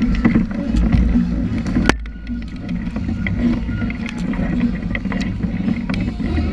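Water rushing and splashing against the bow of a sea kayak under way, with a low rumble of wind on the microphone and frequent small sharp splashes from paddle strokes. A single sharp knock about two seconds in.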